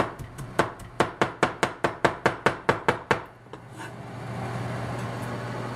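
Chinese cleaver rapidly chopping fresh ginger on a plastic cutting board, about five even strokes a second, stopping about three seconds in. A steady low hum follows.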